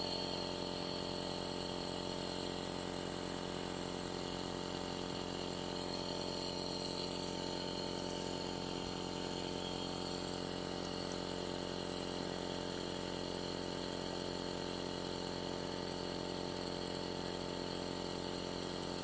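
Compressor nebulizer running with a steady, unchanging hum.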